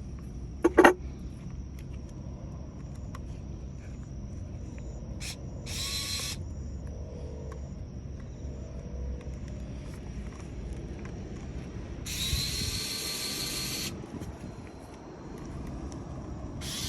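XF590's motor running in short bursts, a whirring, ratchety mechanical noise: the abnormal noise from the motor. One burst of about half a second, a longer one of about two seconds later on, and another at the end, with a sharp loud click-like sound about a second in.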